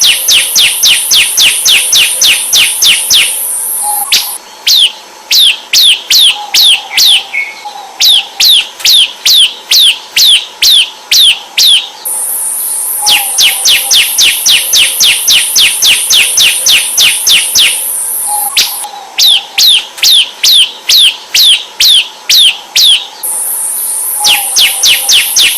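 Bar-winged prinia (ciblek) calling in rapid runs of sharp, descending chirps, about three to four a second, in bouts several seconds long. A steady high-pitched buzz accompanies some of the bouts.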